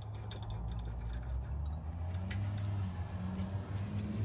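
Light metallic clicks and ticks of a brake caliper mounting bolt being lined up and started by hand, over a steady low background hum.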